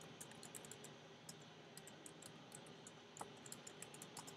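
Faint computer keyboard typing: quick, irregular keystroke clicks as a terminal command is typed out.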